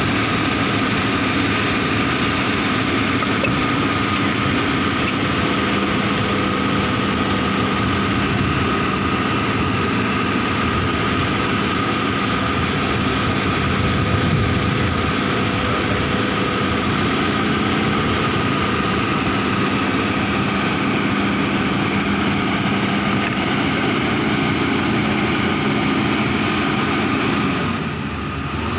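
An engine or machine running steadily with a constant hum and a higher whine, dipping briefly near the end.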